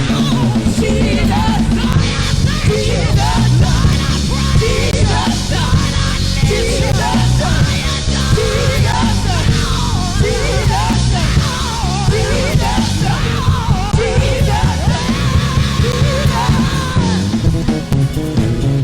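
Live worship band playing with drums, bass and guitar, with voices singing or shouting over it.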